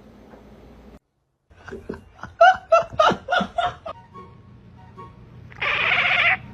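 A person laughing in a quick run of short bursts, then a loud, harsh sound lasting under a second near the end.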